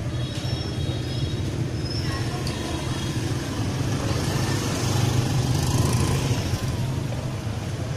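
Street traffic noise dominated by motorbike engines running, a steady low rumble that swells louder about five to six seconds in.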